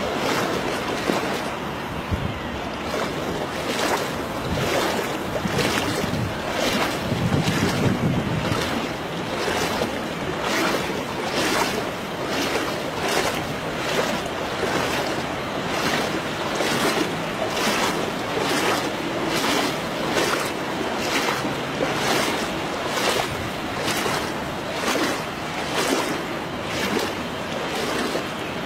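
Footsteps wading through shallow floodwater, a splash and slosh with each stride, a little more than one step a second. Wind buffets the microphone, most heavily about seven seconds in.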